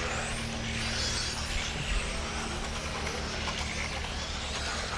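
Electric 1/10-scale RC touring cars racing on an asphalt track: a faint high-pitched motor and gear whine that rises and falls as the cars accelerate and brake, over a steady low rumble.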